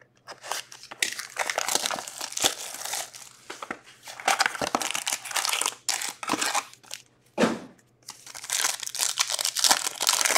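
Plastic wrapping being torn off and crumpled as a hockey card box and its packs are opened: crinkling and tearing in a run of irregular bursts with a few brief pauses.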